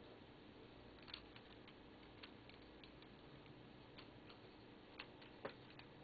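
Faint, irregular plastic clicks of a Rubik's Cube's layers being turned by hand, about a dozen over a few seconds, with the sharpest one near the end, over a steady low hiss.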